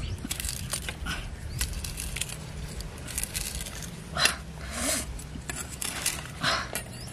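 Machete blade slicing pieces off a hand-held green fruit into a stone mortar: several short cutting strokes at uneven intervals, the loudest about four seconds in.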